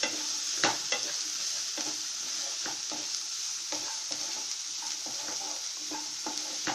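Chopped onions and garlic sizzling in hot oil in a nonstick pan, with a steady hiss, while a wooden spatula stirs them, scraping and knocking lightly against the pan several times a second, sharpest about half a second in.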